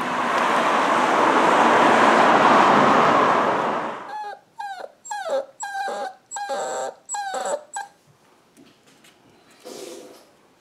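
A loud steady rush of noise for the first few seconds, then a beagle puppy whimpering: a run of about seven short high cries, each falling in pitch, with a faint one near the end.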